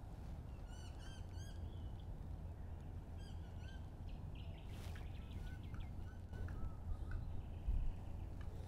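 Small birds chirping in quick runs of short, repeated arched notes, about a second in and again around five to seven seconds in, over a steady low rumble.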